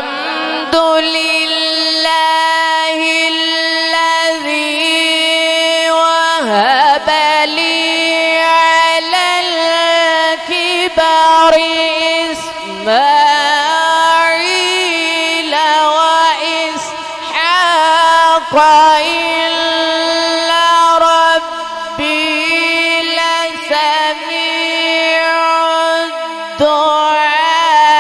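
A man reciting the Quran in a drawn-out melodic chant into a microphone, holding long notes and ornamenting them with rising and falling glides, with brief breaks for breath every several seconds.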